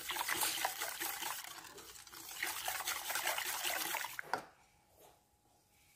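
Wire whisk stirring a thin milk and grated-apple mixture in a stainless steel saucepan: liquid sloshing, with quick ticks of the wires against the pan. It stops with a click about four and a half seconds in.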